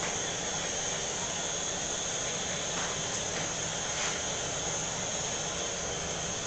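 Pakoras deep-frying in a steel pot of hot oil: a steady sizzle and bubbling, with the even rush of the gas burner under the pot.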